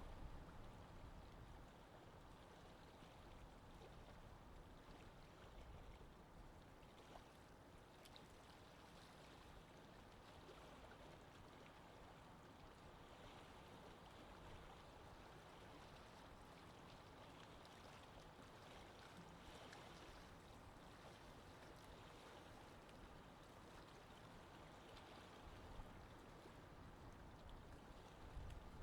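Near silence: a faint, steady wash of water.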